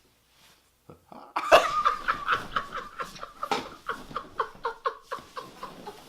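A person laughing: a long run of short bursts, about four a second, that gradually tails off, after a second or so of near silence.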